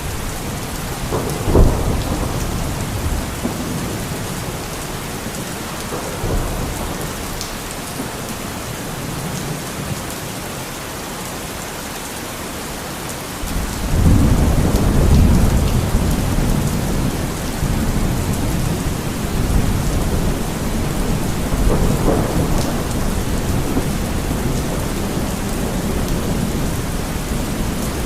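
Steady heavy rain with thunder: a sharp low clap about a second and a half in, then a deep rolling rumble that swells about halfway through and carries on, with another surge near the end.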